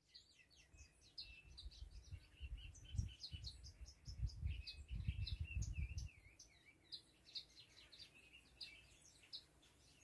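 Small songbirds chirping and twittering faintly in quick, overlapping high notes, some swooping down and back up. A low rumble, like wind on the microphone, runs under the first half and fades out about six seconds in.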